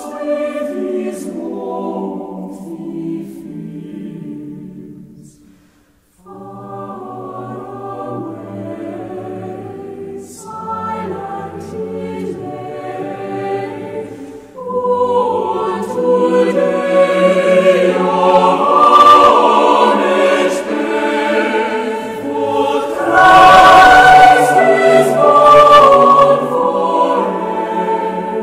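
Choir singing, breaking off briefly about six seconds in, then growing louder from about halfway through.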